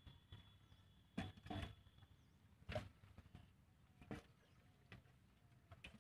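Near silence with faint, scattered soft thuds and rustles, about one every second: footsteps on grass.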